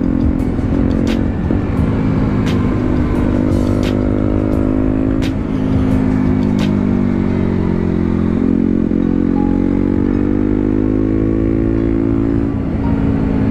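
KTM Duke 125's single-cylinder engine under way, its pitch climbing, dropping back about five seconds in, then climbing again and dropping near the end. A few sharp clicks sound over it in the first half.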